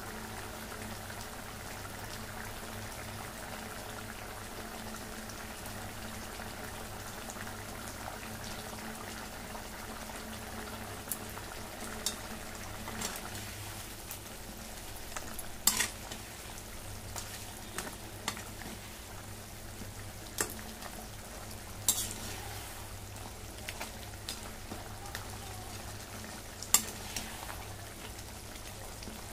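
Fish-head curry bubbling and sizzling in a metal kadai over a steady low hum. From about halfway on, a perforated metal spatula stirs it, scraping and clinking against the pan in a scatter of sharp knocks.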